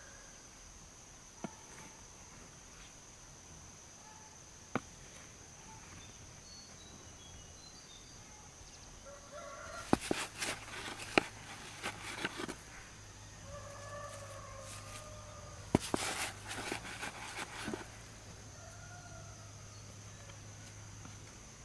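Roosters crowing several times, over a steady high whine. Two bursts of loud clattering knocks, about ten seconds in and again around sixteen seconds, are louder than the crowing.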